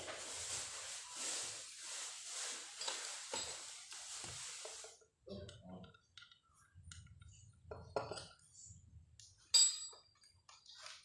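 Handling of a PCP air rifle and its packaging: about five seconds of pulsing rustle or hiss, then scattered light knocks and clicks, with a sharp metallic clink near the end.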